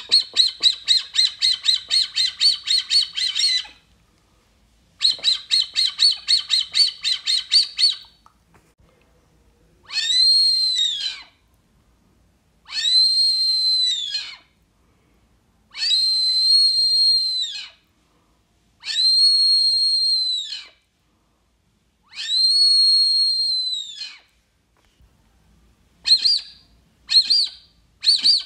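Wooden Brazilian teal call (Maurilio Coelho pio) blown to imitate the duck: two fast runs of short whistles, about five a second, then five long, level whistles about three seconds apart, and a few short notes near the end.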